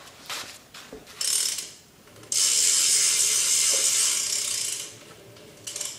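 Stock rear hub of a Premium Subway BMX bike freewheeling: the pawls ratchet in a fast, high-pitched buzz as the wheel spins. A few short spurts come first, then one long spin of about two and a half seconds that fades out as the wheel slows. Pretty loud for a stock hub.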